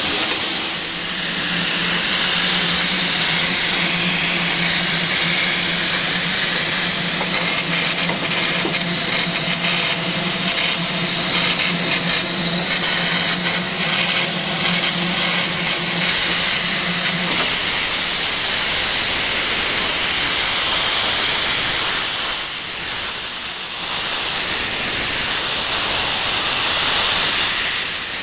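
Two-foot gauge steam locomotive hissing steadily, with a steady low hum under the hiss for roughly the first half. From a little past halfway the hiss grows louder as steam blows from the open cylinder cocks while the engine starts to move, dipping briefly once.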